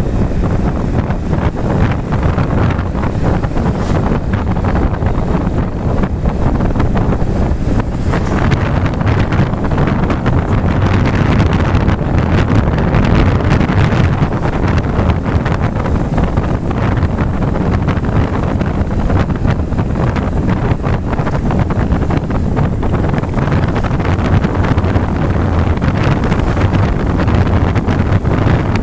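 Heavy wind buffeting the microphone of a vehicle moving along a road. The vehicle's running noise stays low underneath, steady with no breaks.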